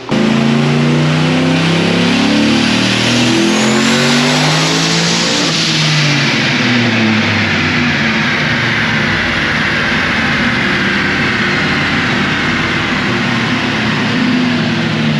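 2005 Chevrolet Silverado's turbocharged 4.8-litre V8 making a full-throttle pull on a chassis dyno. It comes in suddenly and loud, and the engine note climbs in steps as it revs under load. A high whine rises about three to five seconds in as the 88 mm turbo spools.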